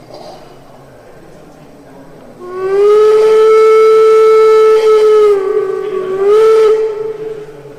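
Steam-whistle sound from the onboard sound electronics of a Gauge 1 (1:32) model of steam locomotive 18 201. One long blast starts about two and a half seconds in, sags a little in pitch partway through, then rises again before fading out.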